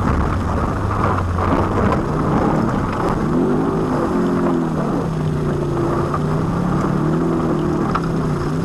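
Four-wheel-drive rally car at speed on a stage, heard from inside the cabin: the engine runs hard over loud road noise, with a few knocks in the first seconds. From about three seconds in, the engine pitch rises and falls repeatedly as the revs change.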